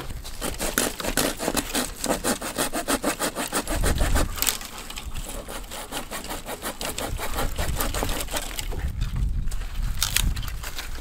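A hand saw cutting through wood in quick, steady back-and-forth strokes.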